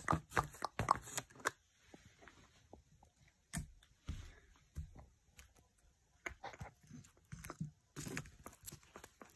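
Plastic toy figures and a cardboard box being handled: quick small clicks and taps, dense in the first second or so, then scattered taps and faint rustling.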